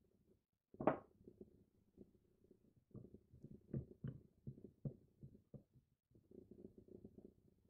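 A miniature spatula working whipped cream in a small glass bowl: soft squishing scrapes of the cream, with light taps of the spatula against the glass. There is one sharper click about a second in and a run of small taps a little past the middle.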